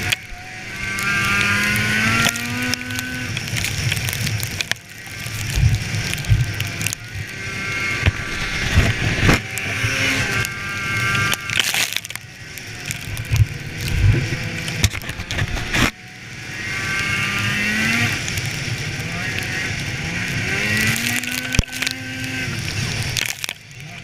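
Polaris snowmobile engine running under throttle on a trail ride. It revs up in rising sweeps near the start and again about two-thirds of the way through, dropping briefly as the throttle is eased off in between.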